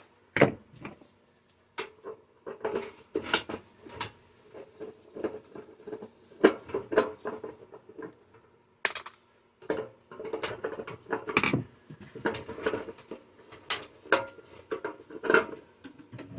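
Irregular metallic clinks, knocks and clanks of hand tools and sheet-steel microwave parts being handled while the turntable motor is taken off the chassis.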